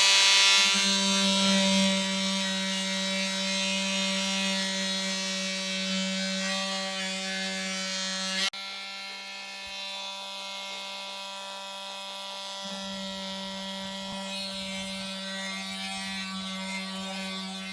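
Porter Cable oscillating multi-tool with a sanding head and 80-grit paper running, sanding a wooden baseboard joint: a steady, high buzz. It drops suddenly in level about eight and a half seconds in and keeps running.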